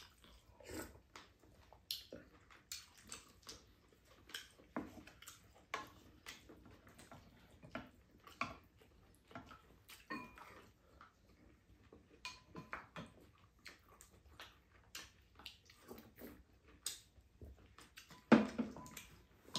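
Two people eating stir-fried chicken and vegetables: soft chewing and mouth sounds with frequent light clicks and clinks of metal spoons and chopsticks against ceramic bowls and a pan. A louder knock and clatter comes near the end.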